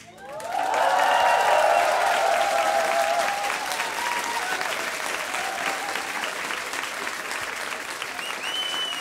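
A large concert audience clapping and cheering, with whoops over the applause; it swells within the first second and then carries on steadily, and a short high whistle sounds near the end.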